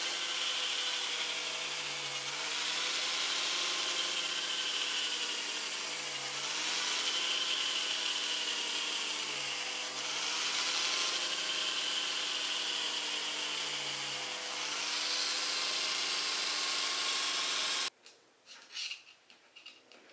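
Small handheld rotary tool (mini electric drill) running steadily as its thin bit bores holes in a plastic bottle cap, the motor's pitch dipping briefly about every four seconds. The motor cuts off suddenly near the end, leaving a few light handling clicks.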